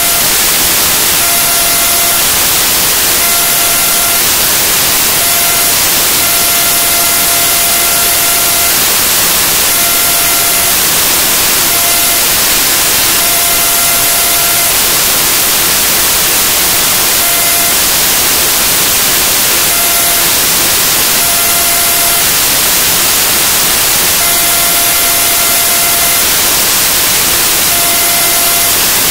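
Loud, steady static hiss filling the audio track in place of the talk, with a thin buzzing tone that cuts in and out at irregular intervals about a dozen times.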